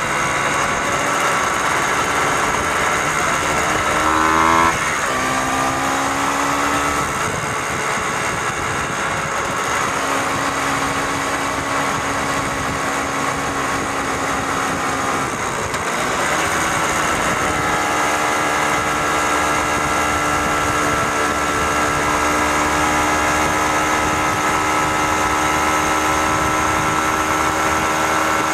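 Motorcycle engine running under way, heard from on board: the revs climb and then drop at a gear change about four and a half seconds in, change again around sixteen seconds in, then hold steady at cruising speed.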